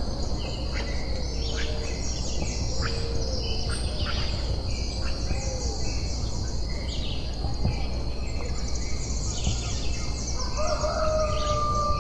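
Coastal ambience over a low steady rumble: a steady high insect drone, short low bird calls repeating about once a second with scattered chirps, and a long drawn-out bird call starting near the end.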